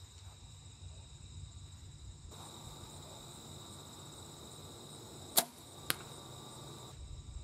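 Arrow from a Bear compound bow striking a cardboard deer target backed by a hay bale: one sharp smack about five seconds in, then a smaller click half a second later.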